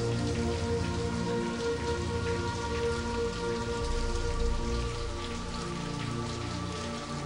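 Steady rain with scattered drops, mixed with slow background music of long held notes.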